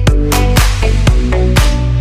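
Electronic dance music with a steady, driving beat and heavy bass.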